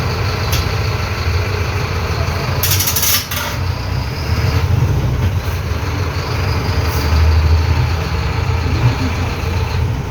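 City bus engine running, heard from inside the bus as a steady low rumble, with a short burst of hiss about three seconds in.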